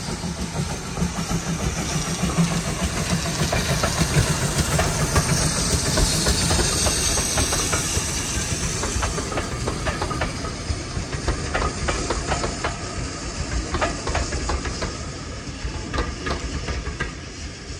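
Steam-hauled train passing: a hiss of steam over the train's rumble, loudest about five seconds in, then carriage wheels clicking over the rail joints in the second half as the train runs by.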